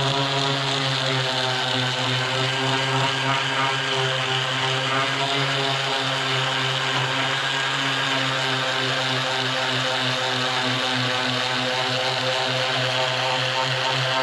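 Electric woodworking machine running steadily at a constant pitch, a motor hum with a hiss above it.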